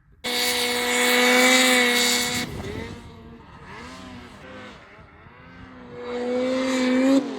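Snowmobile engine at high revs, a loud steady note that starts abruptly and cuts off about two and a half seconds in. A quieter engine sound that rises and falls follows, then climbs back to high revs and cuts off suddenly near the end.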